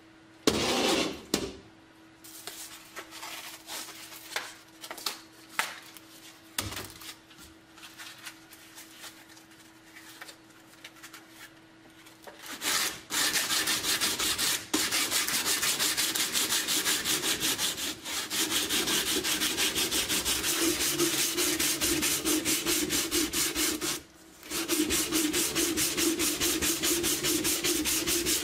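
Abrasive scrubbing of a rusted steel helmet shell by hand. For the first half there are scattered short rubs from a sanding sponge. About halfway in, a brush starts scrubbing the metal fast and evenly, much louder, and stops briefly once near the end.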